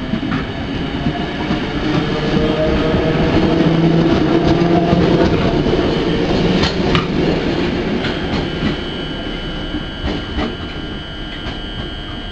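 English Electric DM/D class electric multiple unit passing along the platform: rumbling wheels with a low hum from the motors, building to its loudest about four to six seconds in and then fading, with sharp clicks from the wheels over rail joints.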